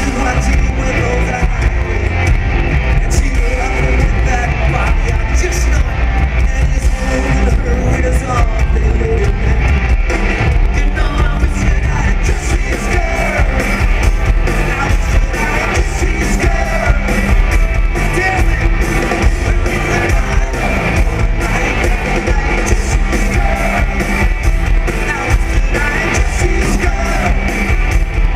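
Live rock band playing with electric guitars, drums and a lead vocal, loud and continuous. Recorded from a concert balcony on a camera microphone, the sound is muddy, bass-heavy and distorted.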